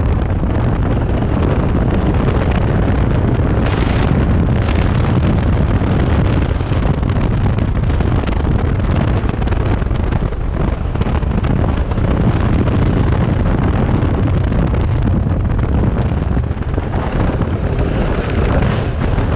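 Kawasaki Versys 650 motorcycle's parallel-twin engine running at riding speed on a gravel road, under heavy wind buffeting on the microphone.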